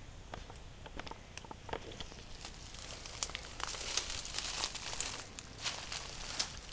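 Footsteps crunching through dry leaf litter and underbrush, with twigs crackling and branches brushing past, irregular and growing busier partway through.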